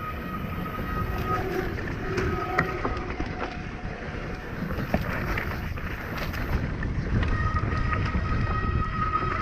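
Mountain bike descending a dirt trail, with wind rushing over the microphone and the tyres and frame rattling over the rough ground in scattered knocks and clicks. A thin steady high buzz sounds in the first second or so and again from about two-thirds of the way through.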